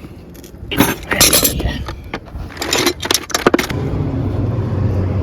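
Metal hand tools clinking and rattling in two short bouts, then a motor vehicle's engine starts a steady low hum about four seconds in.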